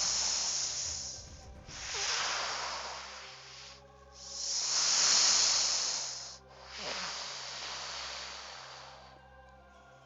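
A hissing noise that swells and fades four times, each swell about two seconds long, over faint background music.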